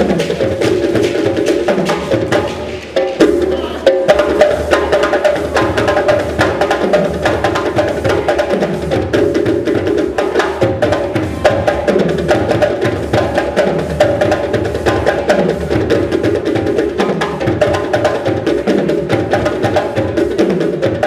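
Percussion-led music with a steady, repeating beat of woody clicks and drums over recurring falling low tones. It dips briefly about two and a half seconds in, then comes back in full.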